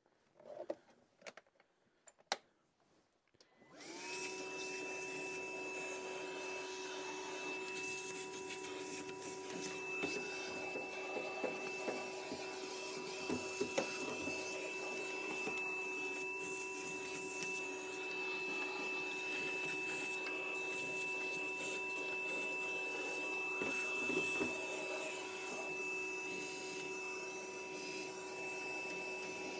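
Shop vacuum switched on about four seconds in, after a few handling clicks, then running steadily with a whining motor tone. Its hose is in the furnace cabinet sucking up rust, with occasional small crackles of debris.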